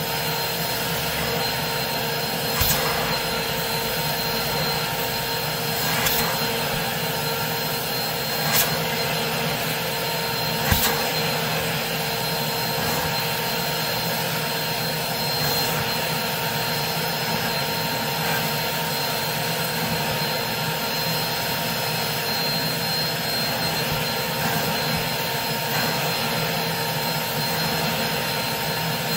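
Carpet-extraction wand being drawn across a wool rug, its extractor vacuum running steadily with a whine and the suction rushing through the wand head. There are a few sharp clicks in the first eleven seconds.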